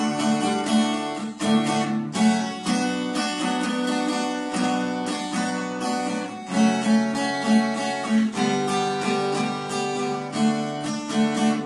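Acoustic guitar strummed in a steady rhythm, playing chords without singing between the chorus and the return of the verse.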